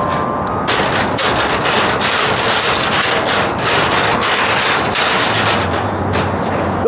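A tall unicycle's tyre rolling over a metal grated gangway, starting about a second in. It makes a loud, dense rattle of rapid clicks that carries on steadily.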